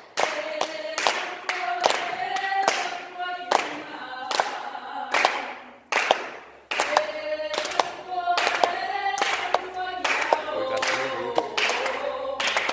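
A group of women singing together unaccompanied, held notes in unison, with sharp slaps keeping a steady beat under the song. There is a short break about halfway through before the singing starts again.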